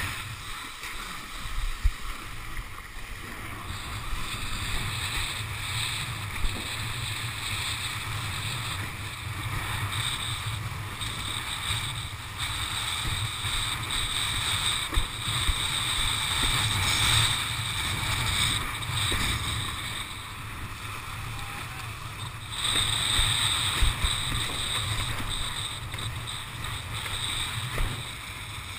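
Wind and rushing water picked up by a camera on a windsurfing rig sailing fast over choppy sea: a steady low rumble and hiss that swell and ease in gusts, with a few sharp knocks as the board hits the chop.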